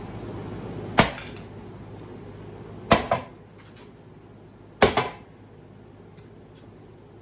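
Three heavy sledgehammer blows on the cast-iron end housing of a large three-phase 50 hp electric motor, metal on metal, about two seconds apart, each followed by a quick lighter knock. The blows are meant to drive the housing off the rotor shaft.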